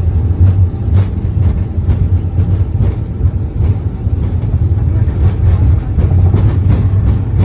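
Airliner on its takeoff roll heard from the cockpit: a steady low rumble of engines and rolling gear, with regular knocks about three times a second.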